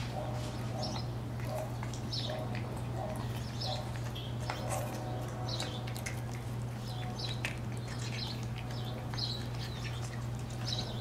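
Birds chirping: short high calls repeating about once a second, over a steady low hum.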